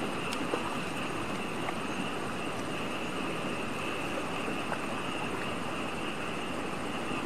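Steady outdoor night background with a constant high-pitched drone and a hiss underneath, broken only by a few faint ticks as someone wades in shallow water.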